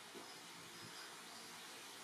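Faint, steady outdoor background hiss, with a few faint short high chirps.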